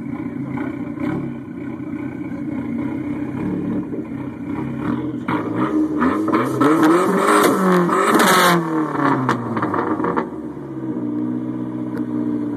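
Dodge SRT-4's turbocharged 2.4-litre four-cylinder running through a straight-pipe exhaust: idling, then revved up once about halfway through, rising in pitch for a couple of seconds and falling back to a steady idle.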